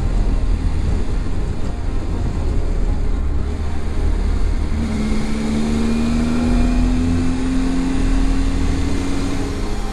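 Motorcycle riding at road speed, heard from an onboard camera: heavy wind rumble on the microphone over the engine. From about halfway the engine note rises slowly and steadily as the bike picks up speed.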